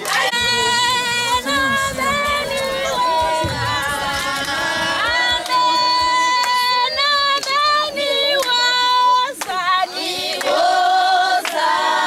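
A group of women singing together in high voices, holding long notes, with hand clapping; the singing breaks off briefly about nine seconds in and then goes on.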